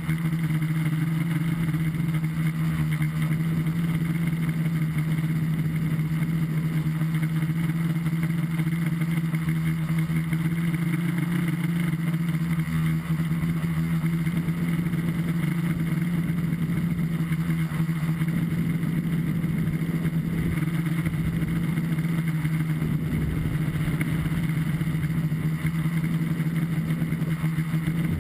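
Onboard sound of an FPV tricopter in flight: its three brushless motors and propellers give a steady, loud hum with a rough, gusty rumble of wind on the camera's microphone underneath.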